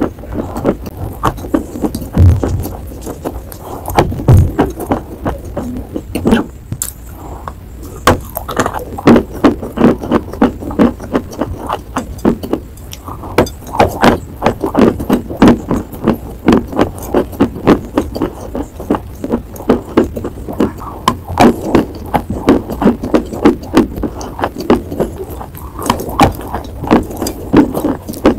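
Close-miked chewing and crunching of a crumbly chalky chunk in the mouth: rapid crackling crunches, several a second, bunched into quick runs.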